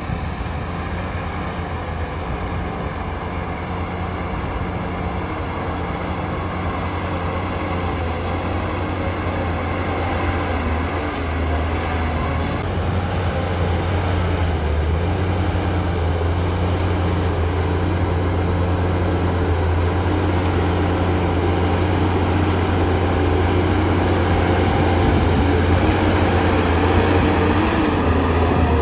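Heavy diesel engine of earthmoving machinery running steadily under load, a deep hum that grows gradually louder.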